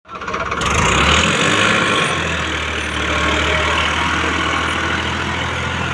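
Farmtrac tractor's diesel engine running hard under heavy pulling load, with a steady rushing noise over it. The engine note changes about two seconds in.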